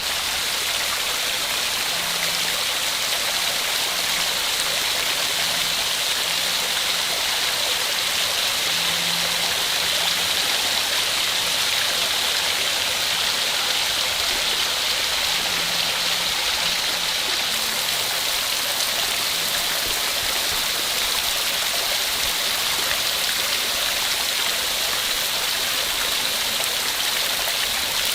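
Small woodland waterfall cascade: a steady, even rush of falling and splashing water.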